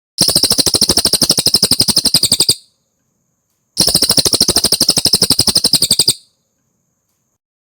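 Cililin bird singing two loud, rapid, high trills of about two and a half seconds each, about fifteen notes a second, with a second's pause between them.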